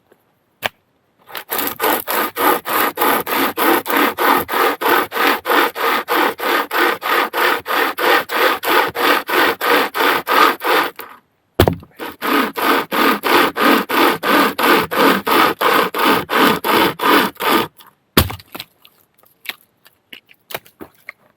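Hand saw cutting through a log in quick, even back-and-forth strokes, about three or four a second. It pauses once about halfway, then carries on for several more seconds, and ends with a knock and a few small clicks.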